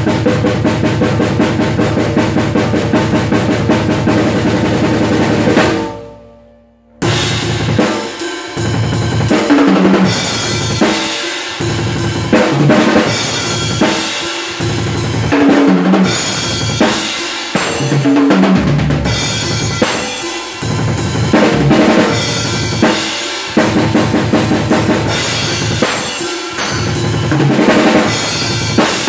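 Acoustic drum kit played hard: a fast, continuous pattern with cymbals, a sudden drop-out of about a second around six seconds in, then busy fills across the toms, snare and bass drum.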